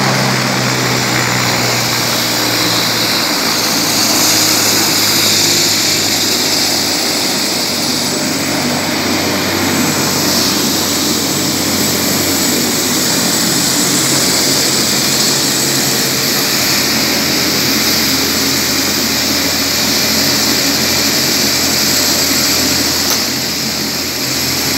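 Loud, steady helicopter noise: the turbine and rotor run evenly, with a high hiss over a low drone.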